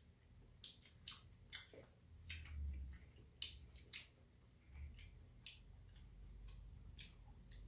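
Faint, scattered clicks of chopsticks picking up food and tapping the takeout containers, about ten over several seconds, with a couple of dull low bumps and soft eating sounds between them.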